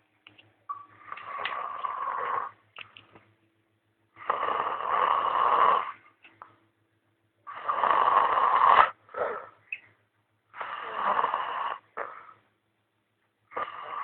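Snoring: a noisy breath every three seconds or so, each lasting a second or two.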